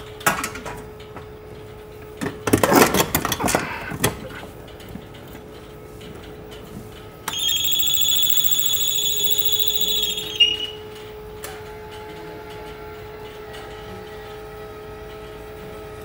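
Clicks and handling at a water heater's control panel, then a high, steady electronic beep from the panel for about three seconds. After the beep a fainter steady hum sets in as the heater begins calling for heat.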